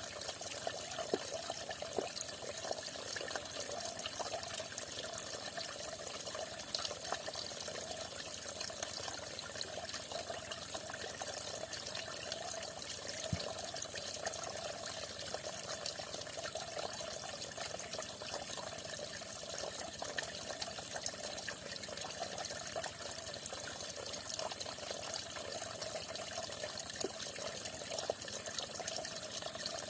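Water falling steadily, a continuous even splashing that does not change.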